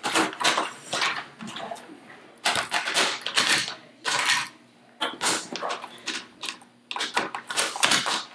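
Grey plastic Thomas TrackMaster toy train track pieces clacking and scraping on a tabletop as they are handled and fitted together, in irregular bursts of clicks and rustle.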